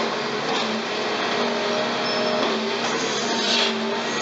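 Demolition excavator's diesel engine and hydraulics running steadily with a low hum, and a brief hiss about three and a half seconds in.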